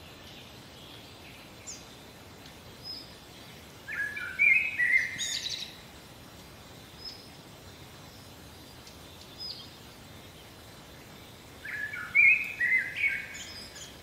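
Geese calling in two bouts of harsh, stepped calls, one about four seconds in and one near the end, with a few short high chirps from small birds between them over a steady outdoor background hiss.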